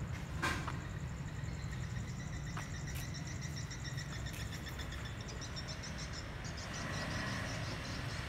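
Night insects, crickets by their sound, trilling in high, pulsing chirps over a steady low rumble, with a few sharp clicks in the first few seconds.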